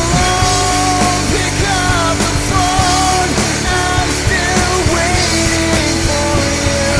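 Rock band playing at a steady loud level, with a wavering melodic lead line over a dense bed of band sound.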